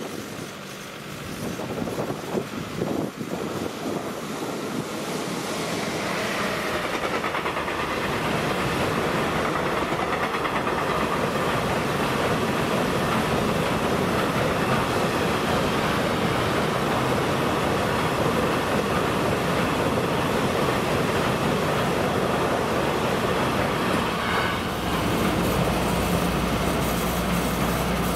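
A freight train of hopper wagons rolling past at speed, wheels clattering on the rail joints. The noise builds over the first few seconds and holds steady. Near the end it thins out and a low steady hum comes in.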